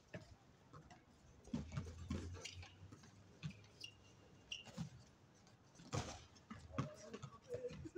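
Irregular thuds and taps of a basketball bouncing and players' footsteps on an outdoor hard court, with a sharper impact about six seconds in. A brief high squeak comes a little past the middle.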